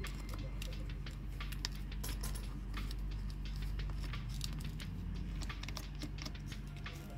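Irregular light clicks and clinks of the iPhone and its back-glass holder fixture being handled, pressed down and clamped into place, over a steady low hum.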